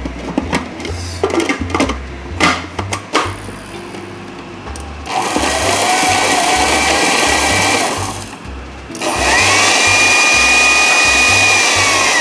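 Food processor chopping torn bread into breadcrumbs in two runs of about three seconds each, the motor whine rising as it spins up and falling as the second run stops. Before that come a few plastic clicks and knocks as the feed-tube pusher is fitted.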